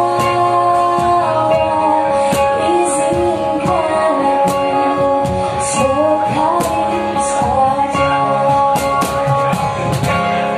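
Live acoustic music: a woman singing over two strummed acoustic guitars.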